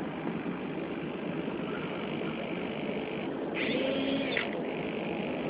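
Steady background noise, a mix of low rumble and hiss like distant traffic, with a brief higher-pitched sound about three and a half seconds in.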